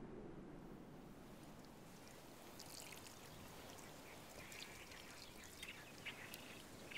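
Faint outdoor ambience: a soft steady hiss, with small birds chirping and twittering from about halfway in.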